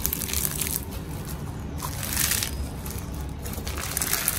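Crunchy floam slime packed with bingsu beads and glitter being squeezed, stretched and folded by hand, crackling and popping in several bursts. This is the crunch test of the slime.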